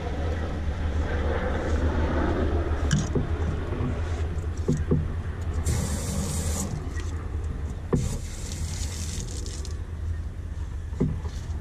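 Knife slicing through a redfish's scales and ribs, two scratchy strokes of about a second each, over a steady low engine-like rumble.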